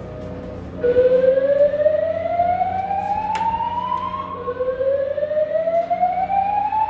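Hotel emergency alarm sounding a slow-whoop alert tone, the building's early alert signal: two rising sweeps, each climbing for about three and a half seconds. The first starts just under a second in and the second about four and a half seconds in. A brief click comes midway through the first sweep.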